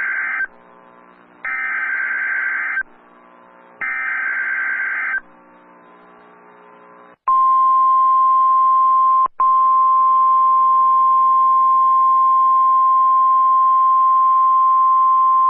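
NOAA Weather Radio Emergency Alert System tornado warning: the end of one SAME data-header burst and two more warbling digital bursts, each about a second and a half long. After a short pause with a low hum, the steady 1050 Hz weather-radio alert tone sounds from about seven seconds in, with one brief dropout. The tone signals that a warning message follows.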